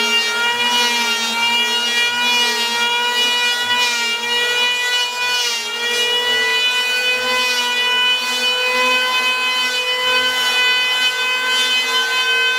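Stanley STL630 750 W electric hand planer running at full speed, a steady high whine, its spinning cutter drum shaving the surface of a plastic cutting board at the shallowest depth setting.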